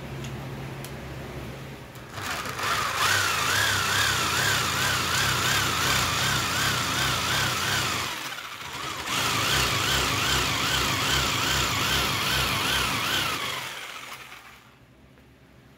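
Black+Decker jigsaw cutting a curve in steel plate: a loud rasping cut with a shrill tone that wavers up and down two or three times a second. It starts about two seconds in over a steady hum, pauses briefly about halfway, and stops near the end.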